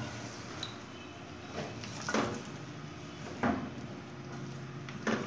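Silicone spatula stirring sliced raw mango in sugar in an aluminium pot, with several short scrapes and knocks against the pot, over a steady low hum.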